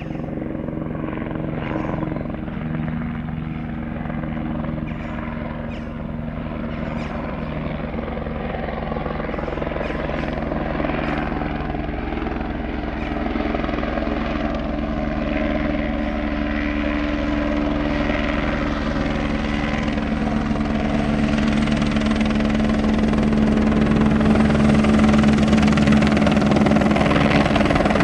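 Eurocopter AS350B3 Écureuil helicopter on approach, with its main rotor beat and turbine running steadily. The sound grows louder as it comes in close and settles into a low hover.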